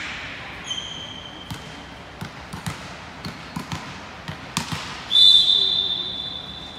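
A referee's whistle blown in one long, steady blast about five seconds in, the loudest sound here, the signal that authorizes the serve in volleyball. Before it come scattered thuds of a volleyball bounced on the gym floor and a brief, fainter high tone about a second in.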